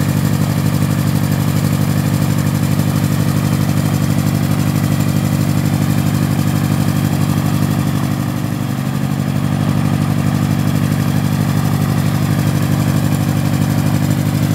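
Small autogyro's engine running steadily on the ground, a rapid, even low pulse, with the note dipping briefly about halfway through.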